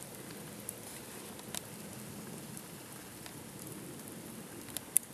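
Campfire crackling: a steady hiss broken by a few sharp snaps, the loudest just before the end.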